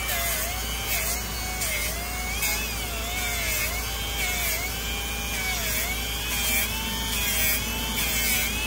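Air-powered rotary sanding tool running against a wheel rim, sanding down curb rash. Its whine dips in pitch and recovers about once a second as it is pressed in and eased off, over a steady low hum.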